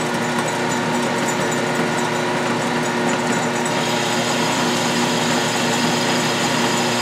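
12-inch Atlas/Craftsman metal lathe running steadily, a hum with several steady whining tones from its motor and drive, while a carbide boring bar cuts inside the bore of the spinning workpiece.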